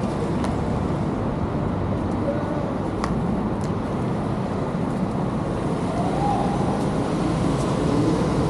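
Steady low rumble of traffic and of a Onewheel rolling over a concrete path, with a few faint clicks.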